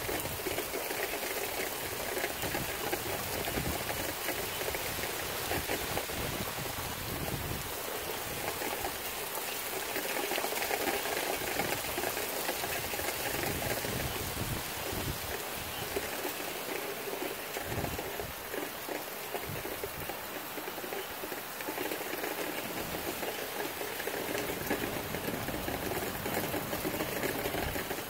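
Tropical Storm Irma's steady rain with strong, gusting wind, the gusts buffeting the microphone in an irregular low rumble.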